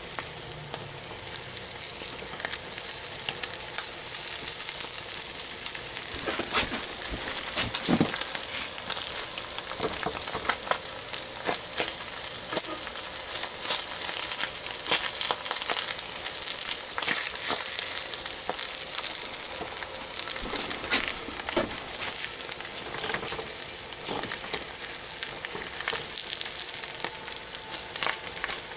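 Eggs and tuna frying in hot oil in a frying pan: a steady sizzle with many sharp crackles and spatters. A wooden spatula scrapes and pushes in the pan as the omelette is folded.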